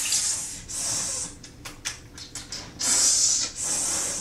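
A person hissing like a snake: four short breathy hisses, with a quick run of sharp clicks between the second and third.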